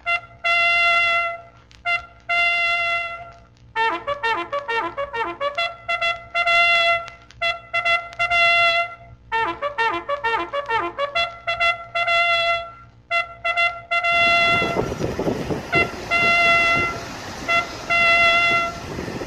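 Trumpet-led brass music, with long held high notes alternating with quick runs of notes. About three-quarters of the way in, a loud, even rushing noise sets in beneath it.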